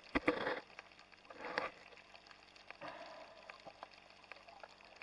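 Underwater water noise from a camera moving just below the surface: a swish of water and bubbles at the start, another about a second and a half in, and a smaller one near three seconds, over a faint crackle.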